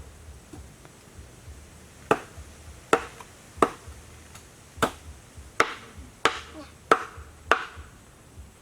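A knife chopping: about eight sharp strokes at uneven intervals, starting about two seconds in.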